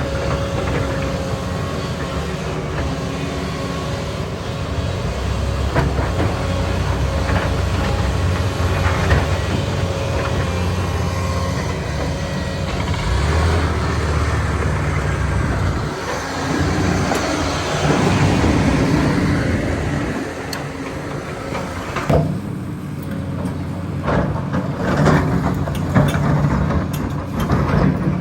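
Kobelco 380 hydraulic excavator's diesel engine running, the engine note rising under load about two-thirds of the way through, with scattered knocks and clanks in the last few seconds.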